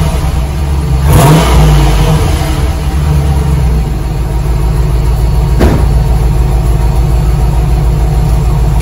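2004 Dodge Ram 1500's 5.7 Hemi V8 running through its stock muffler and resonator, revving briefly about a second in, then settling to a steady idle. It sounds like a four cylinder rather than a truck.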